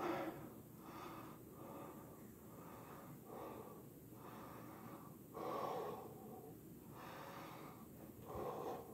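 A man breathing hard and heavily, winded from push-ups: a string of deep breaths about one a second, loudest at the start and about halfway through.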